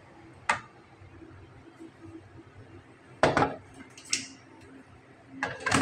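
Glass tumblers and a plastic blender jar being handled and set down on a tray. There is a sharp knock about half a second in, two more knocks and clinks around three to four seconds in, and a short cluster near the end, over a faint low hum.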